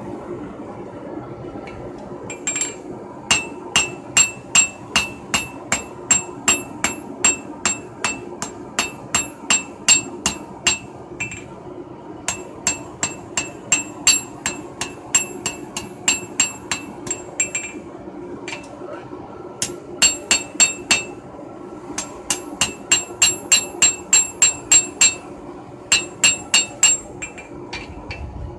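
Hand hammer striking red-hot knife steel on an anvil, in runs of quick blows at about two or three a second, each with a bright metallic ring. The runs break off briefly a few times.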